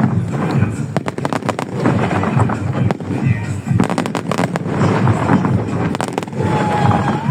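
Fireworks going off in rapid volleys of bangs and crackles. Dense clusters come about a second in, around four seconds and around six seconds, over music and voices.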